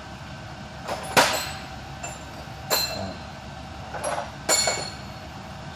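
A handful of sharp metal clinks and knocks with a short ringing after each, the loudest about a second in, as metal tools and parts are handled, over a steady low hum.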